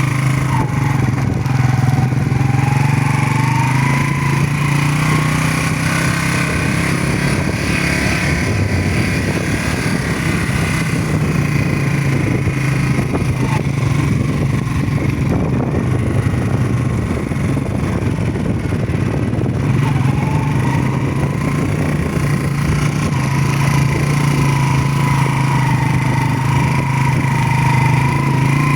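Motorcycle engine running while riding, its pitch dipping and climbing again with the throttle near the start and again about twenty seconds in.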